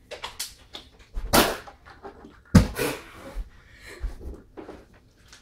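Quick, breathy puffs of a person breathing hard, with a sudden thud about two and a half seconds in.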